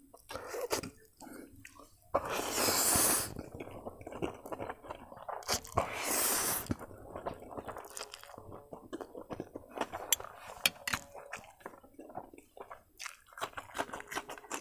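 A person eating noodles close to the microphone: two long slurps, about two and six seconds in, then steady wet chewing with many small crunchy clicks.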